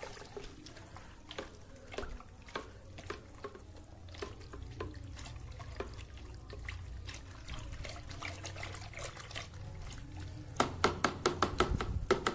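Green aqua regia gold solution being stirred with a stick in a plastic bucket after sodium metabisulfite is added to drop the gold: irregular sloshing and swishing, with a quick run of sharp knocks near the end.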